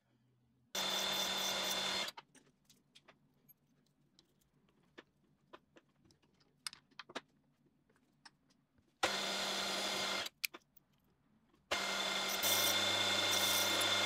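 A drilling machine's spindle running in three short spells as holes are drilled through a glued stack of brass levers, with faint clicks between the spells; a low hum joins in during the last spell.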